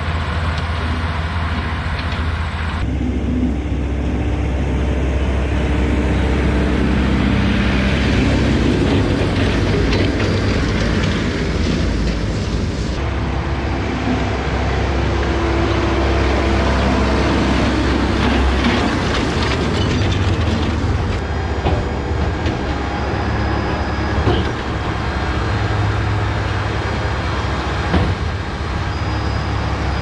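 A Kubota tractor's engine runs steadily under load, pulling a Claas Variant 465 RC round baler that is picking up and rolling hay, with the baler's machinery clattering along with the low engine hum.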